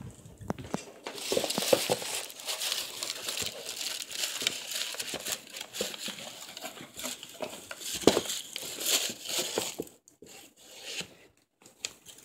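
Paper packaging crinkling and rustling as a gift is pulled out of its box, with a dense, busy crackle that thins out to a few small handling noises near the end.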